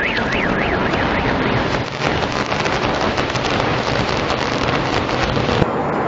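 Rumble and crackle of a high-rise falling in a controlled demolition: dense, loud noise full of sharp cracks. A warbling alarm wails through the first second, and the sound breaks off abruptly near the end.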